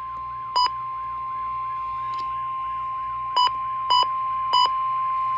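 Weather radio warning alarm tone, a single steady pitch near 1 kHz (the NOAA Weather Radio 1050 Hz tone that announces an incoming alert). Under it a fainter tone rises and falls about twice a second. Four short, sharper beeps cut in: one about half a second in, then three in quick succession near the end.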